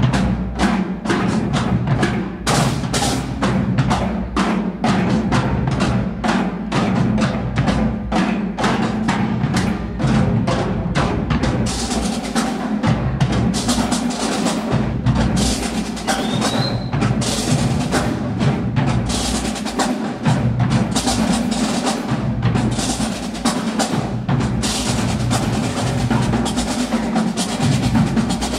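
Drum line of marching snare drums and bass drums playing a fast, dense rhythm, with steady low bass-drum beats under rapid snare strokes.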